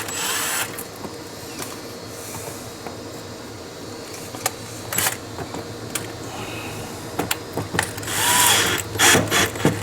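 Hand tools clicking and clinking in a garage as a socket is sorted out and fitted: scattered sharp clicks and knocks, with a short rustling clatter about eight seconds in.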